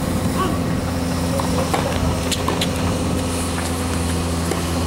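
Tennis ball being hit back and forth on a hard court: a few sharp pops of ball on racket and court, clearest a little after two seconds in and again near the end, over a steady low engine-like hum.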